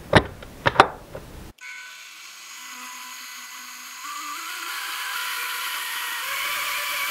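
A few clicks and knocks as the blender's plug and base are handled. Then the Vitamix blender's motor starts about a second and a half in and runs with a whine that steps up in pitch and grows louder as the speed dial is turned up, churning a thick smoothie. It is being restarted after it cut out from overload.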